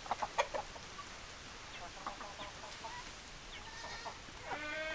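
Domestic hens clucking, a quick run of sharp clucks at first, then scattered short calls. Near the end a long, steady bleat starts.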